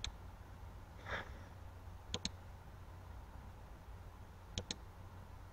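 Computer mouse double-clicking: three quick pairs of clicks about two seconds apart, with a soft breath about a second in, over a faint low hum.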